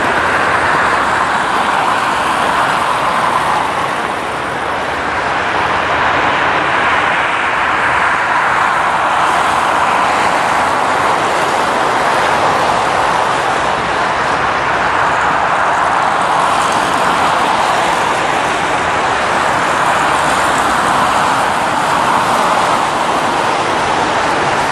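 Steady road traffic noise: tyres hissing on a wet road, swelling and easing every few seconds as cars pass.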